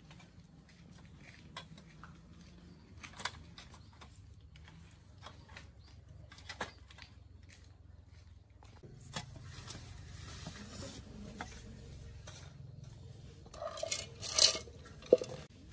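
Scattered light clinks and knocks, with a louder burst of clatter near the end, over a faint low hum.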